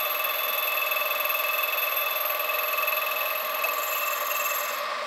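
A carbide tool turning a welded-up stainless steel impeller seal ring on a lathe, the cut singing with a steady high-pitched ringing made of several tones at once. The ringing stops just before the end.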